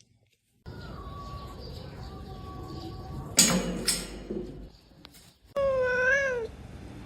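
A cat's single long meow that rises and then falls in pitch near the end. It follows a sudden loud noise about halfway through.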